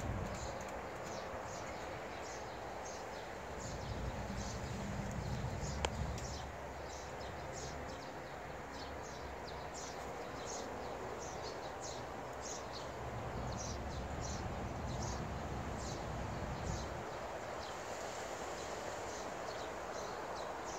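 Small birds chirping over and over in short high notes, over a low outdoor rumble that swells a little twice. A single sharp click comes about six seconds in.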